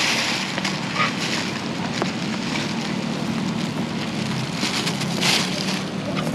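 A steady low hum under an even hiss, with a few brief rustles of a paper tissue being worked around inside a small steel pot.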